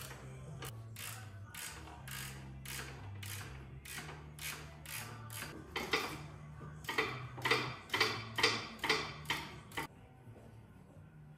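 Hand ratchet wrench being cranked on bolts: a run of ratcheting clicks, a few swings a second, that gets quicker and louder from about six seconds in and stops near the end. A low background music bass line runs underneath.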